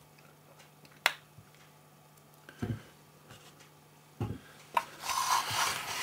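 Handling sounds from the thin plastic film of a microwave's membrane keypad and the panel housing: a sharp click about a second in, two dull knocks, another click, then the film rustling near the end. A faint steady hum sits underneath.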